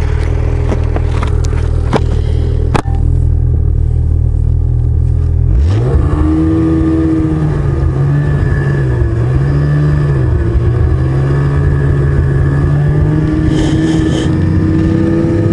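Ski-Doo snowmobile engine running at a low, steady speed, then opening up about five and a half seconds in: the pitch sweeps up, wavers, and settles into a steady cruising note. A couple of sharp clicks come in the first few seconds.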